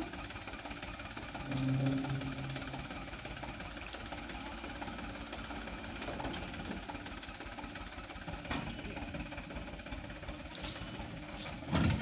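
Mitsubishi Canter dump truck's diesel engine running steadily at low revs while the emptied tipper body comes down and the truck moves off.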